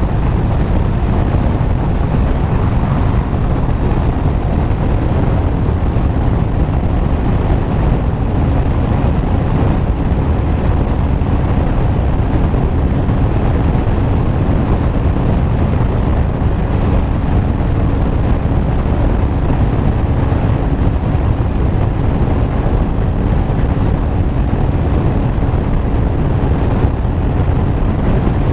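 Honda CBR500R's parallel-twin engine holding a steady high-speed motorway cruise, about 160–170 km/h, buried under heavy, unbroken wind rush on the rider's microphone. A faint steady engine tone sits under the noise.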